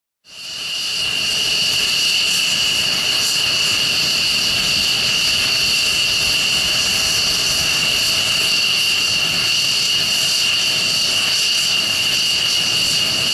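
F-16 fighter jets' turbofan engines running as they taxi: a steady high whine over a constant rush of jet noise, fading in at the start.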